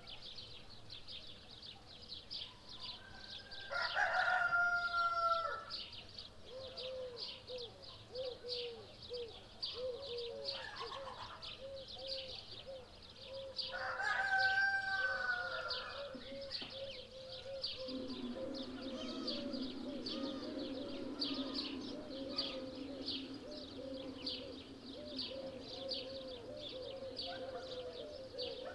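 Morning bird chorus: a rooster crows twice, about four and fourteen seconds in, over constant rapid high chirping of small birds. From about six seconds on, a run of soft, evenly repeated low calls from another bird continues under the chirping.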